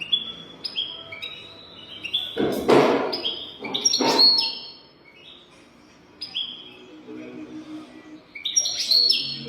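European goldfinch singing a fast, twittering song of short, quick-falling notes. Two louder bursts of noise break in about two and a half and four seconds in.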